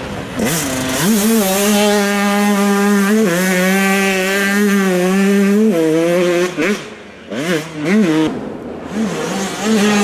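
Two-stroke motocross bike engines racing past: held at high revs, stepping down in pitch with a gear change about three seconds in, then backing off and blipping the throttle several times in quick rises and falls.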